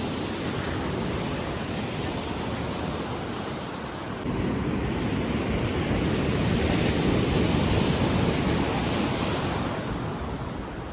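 Ocean surf washing on the shore, a steady rush that turns louder about four seconds in and eases near the end.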